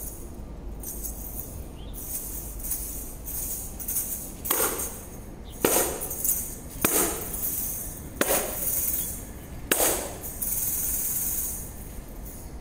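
Hand tambourine being shaken so its jingles rattle, with about five sharp hand strikes on the head in the middle, roughly a second apart, then a steady unbroken shake of the jingles near the end.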